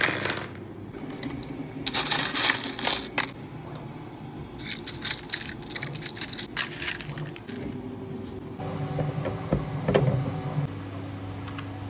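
Irregular clinking and rattling of small hard objects being handled, in several short clusters over a low steady hum.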